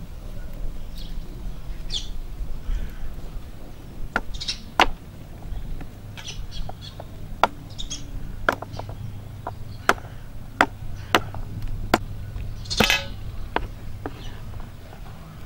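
Kitchen knife chopping garlic cloves on a wooden cutting board, giving sharp knocks at an uneven pace from about four seconds in. Birds chirp throughout.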